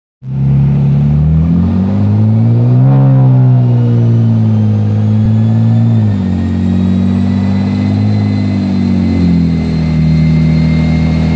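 BMW M4's twin-turbo inline-six running through a prototype BMS exhaust at low-to-mid revs. The engine note climbs in pitch over the first few seconds, drops back about six seconds in, then holds fairly steady, with a faint high whine slowly rising in pitch behind it.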